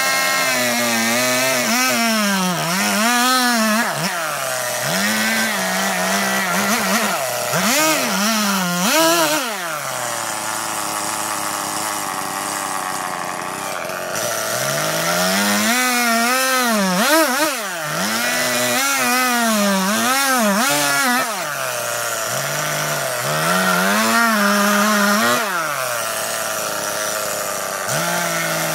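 Chainsaw carving into a large wooden log, its engine pitch rising and falling again and again as it cuts. About a third of the way in it holds a steadier pitch for a few seconds before the swings resume.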